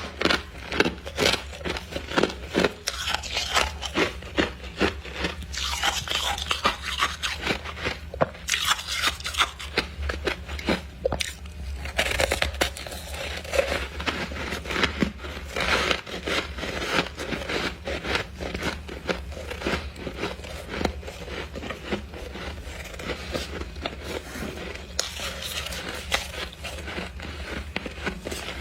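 Freezer frost being bitten and chewed close to the microphone: dense, irregular crunching and crackling with some scraping, going on without a break.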